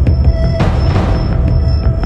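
Background music with a steady beat over a heavy bass drone, with a brief rushing swell about half a second in.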